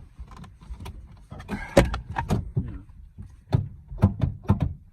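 An old Oldsmobile's car door locks and handles clunking, a string of sharp knocks spread over several seconds as someone works them from inside.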